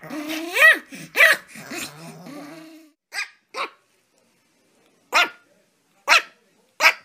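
A Pomeranian growls with a low, steady rumble, broken by a few sharp rising barks, for about the first three seconds. Then a small puppy gives five short, high yips, spaced half a second to a second and a half apart.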